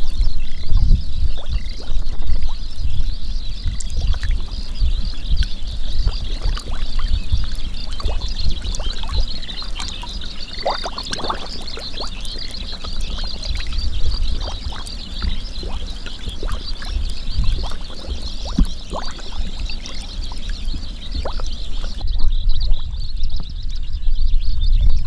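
A steady high-pitched chorus of frogs, over low rumbling and the splashing and sloshing of water and mud, with scattered knocks. The high chorus drops away about three seconds before the end.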